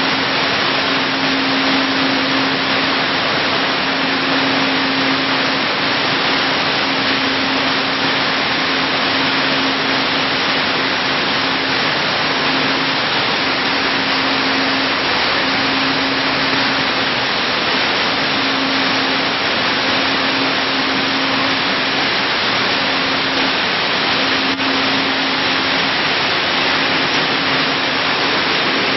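Broad bean seed processing line machinery running: a loud, steady rushing noise with a low hum that keeps breaking off and coming back every second or two.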